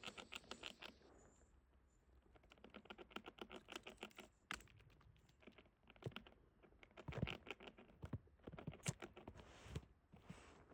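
Red squirrel gnawing a sheep bone: faint, rapid runs of scraping clicks from its teeth on the bone, coming in bursts with short pauses.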